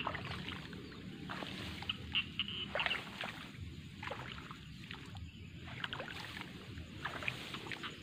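Rice stalks and weeds rustling and brushing against the phone as someone pushes through the edge of a rice paddy: scattered crackles over a steady low rumble.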